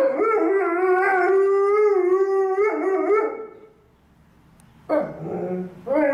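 Alaskan Malamute howling: one long, wavering howl for about three and a half seconds, then after a short pause two more howls begin near the end, the first of them rising in pitch.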